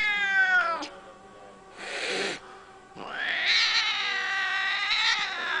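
An angry cat yowling: a short cry that falls in pitch, a brief hiss about two seconds in, then a long drawn-out yowl that rises and holds for about two seconds.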